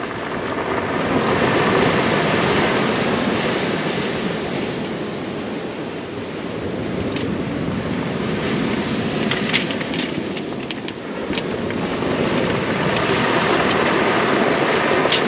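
Waves breaking and washing over a shingle beach, with wind on the microphone; the surf swells up about two seconds in and again near the end. A few sharp clicks of pebbles are heard about ten seconds in and near the end.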